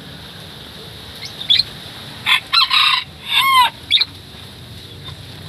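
A rooster crowing once, about two seconds in, in several parts that fall away at the end, with a few short high bird chirps before and after it.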